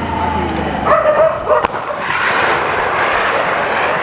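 A small ground firework burning: a sharp crack about one and a half seconds in, then a dense hissing spray of sparks. Short high-pitched yelps sound just before the crack.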